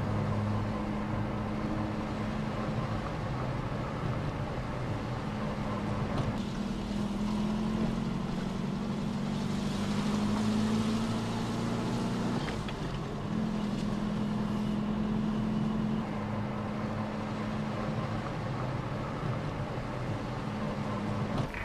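A car driving on a road, heard from inside the cabin: a steady engine hum over road and wind noise, the engine note stepping to a new pitch a few times.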